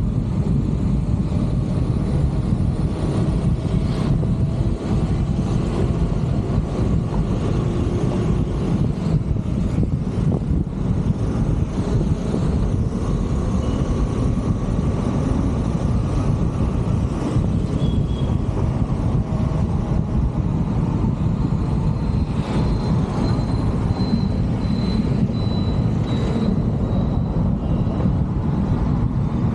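Car driving along a road: a steady low rumble of road and wind noise that does not let up.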